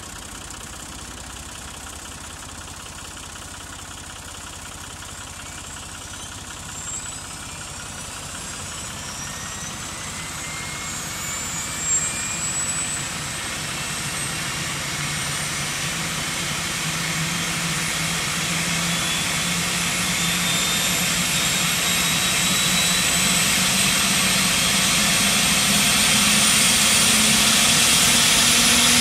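Airbus H145 (EC145 T2) helicopter's Arriel 2E turboshaft engines starting up and the main rotor spooling up: high turbine whines climb steadily in pitch while the sound grows louder. A short knock about twelve seconds in.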